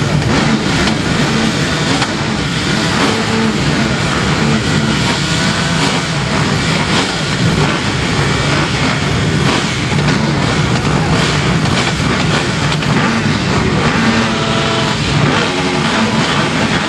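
A full gate of motocross bikes running together before the start, a steady, loud din of many engines with individual revs rising and falling.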